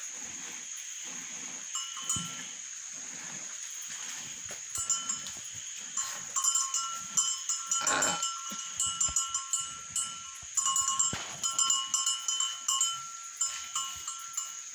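Hand milking of a cow, heard as a steady rhythm of soft strokes of milk squirting into a pail. A neck bell clinks briefly about two seconds in, then jangles almost continuously from about five seconds in as the animal moves.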